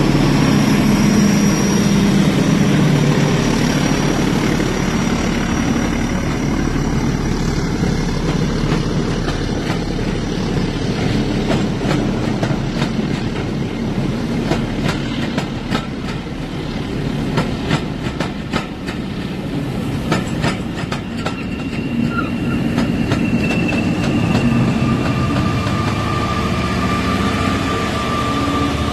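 OO gauge model freight train running past: a diesel locomotive's engine sound at first, then tank wagons rolling by with quick runs of clicks as the wheels pass over rail joints, thickest through the middle.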